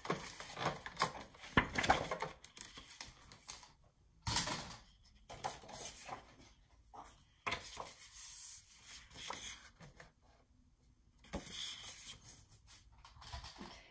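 Sliding-blade paper trimmer cutting a strip from a sheet of scrapbook paper, followed by the paper and tools being handled: rustles, slides and light clicks, densest in the first few seconds and sparser after.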